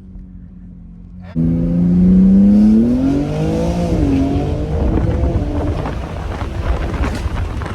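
BMW G80 M3's twin-turbo straight-six at full-throttle acceleration. It cuts in suddenly about a second and a half in with a rising engine pitch, drops at an upshift about four seconds in, and keeps pulling hard.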